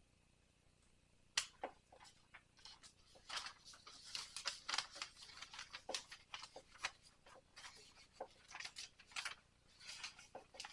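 Light, irregular clicks and scratchy rustling of small items being handled as medicine is put into a vial. One sharp click comes about a second in, and a busy run of clicks starts about three seconds in.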